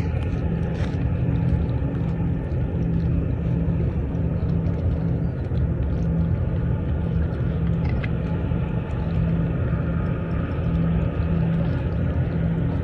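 A steady low engine drone, running evenly without change.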